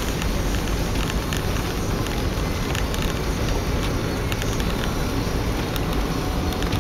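Steady road and engine noise of a car driving, heard inside the cabin, with faint scattered ticks.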